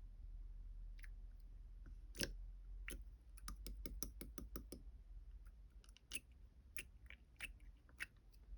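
Irregular light clicks and taps, with a quick run of them between about 3 and 5 seconds in, over a steady low hum.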